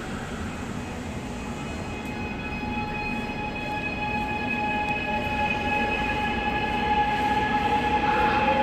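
Subway train running, heard from inside the car: a steady rumble with several steady whining tones from the traction motors. The sound grows gradually louder, and one of the tones rises in pitch near the end as the train picks up speed.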